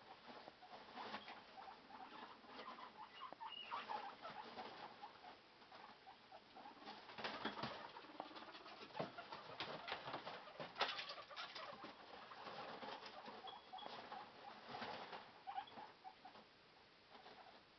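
Guinea pigs running about their cage: feet pattering and scuffling on the bedding, with irregular small clicks and knocks.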